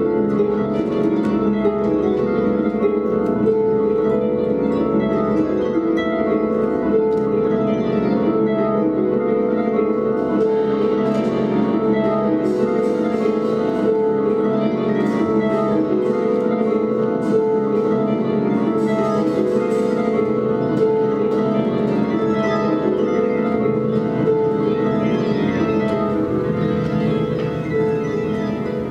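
Two concert harps played together in a duet, many plucked notes ringing over one another in a dense, steady wash of sound.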